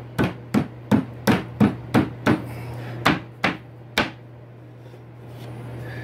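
A series of about ten sharp knocks on a wooden drawer front, struck to press marks for its fixing holes. They come roughly three a second, with a short pause after the eighth, and stop about four seconds in.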